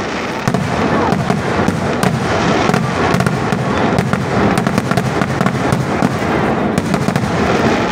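Vedikettu fireworks barrage: a dense, continuous run of firecracker and aerial shell explosions, many sharp bangs and crackles overlapping without a break over a low rumble.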